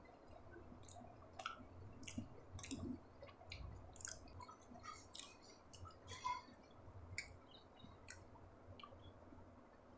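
Close-miked mouth chewing a mouthful of sabudana khichdi, soft soaked tapioca pearls with potato: faint, irregular wet clicks and smacks, about one or two a second.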